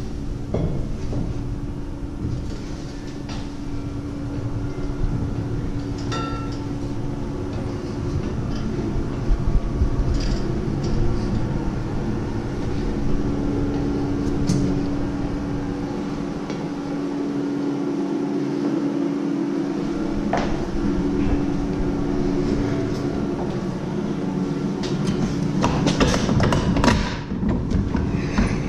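Footsteps and knocks climbing a stairway, over a steady low hum and rumble. Near the end the noise grows louder, with a cluster of clicks.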